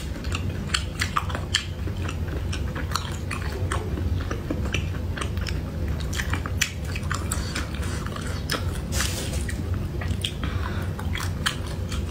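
Close-miked eating sounds: a person chewing food, with many short, irregular wet clicks and smacks, over a steady low hum.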